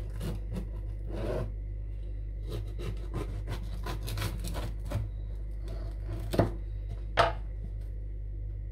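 Knife sawing through a freshly baked, soft loaf of homemade bread: a run of uneven rasping strokes, with two sharper knocks near the end.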